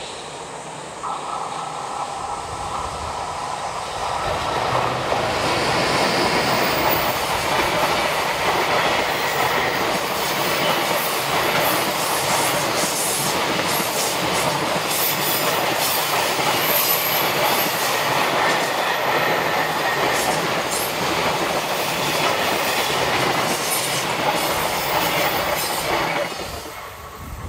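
JR Freight EH500 electric locomotive hauling a long container freight train past at close range. A steady tone is heard as it approaches, then a loud continuous rumble with rhythmic clickety-clack from the wagons' wheels over the rail joints and brief wheel squeals on the curve. The noise drops away quickly as the last wagon passes near the end.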